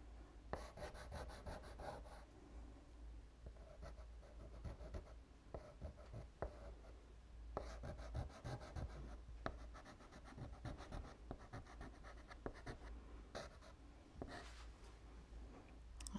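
Soft pastel being stroked and rubbed in with the fingers: faint, scratchy strokes in repeated runs, with a few sharp ticks.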